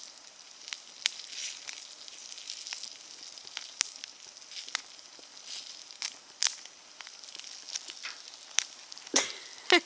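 A bag of microwave popcorn burning on tin foil over an open flame: a steady hissing crackle broken by sharp, irregular pops as the kernels burst.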